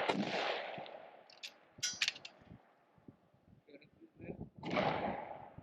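Precision rifle shots: the report of one shot fading away at the start, a few short sharp clicks about two seconds in, then another shot about four and a half seconds in whose report rolls away over about a second.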